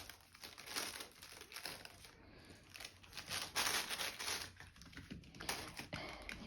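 Faint, irregular crinkling and rustling of crinkly material as puppies move and play on it, busiest a little past the middle.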